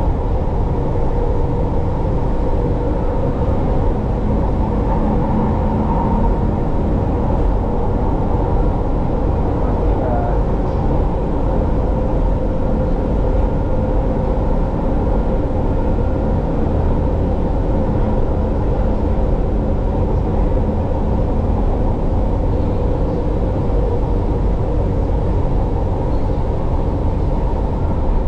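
Steady running rumble of a Manila MRT Line 3 light-rail train heard from inside a moving car: wheels on rails and motor hum, without a break.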